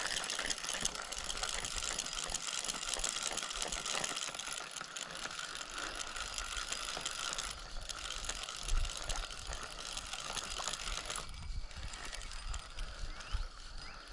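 Spincast fishing reel being cranked to reel in line, its gears giving a fast, steady clicking. The clicking pauses briefly a little past halfway and stops about three-quarters of the way through.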